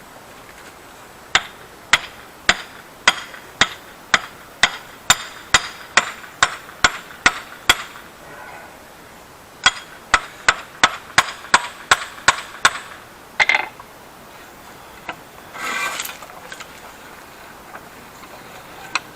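Sharp, ringing metal-on-metal strikes, about two a second, in two runs, as a rusty, partly seized blacksmith's post vise is worked. A stronger clank follows, then a short scrape near the end.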